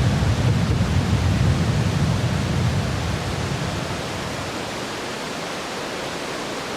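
Steady rushing noise of the Tamul waterfall, its low rumble easing off after about three seconds.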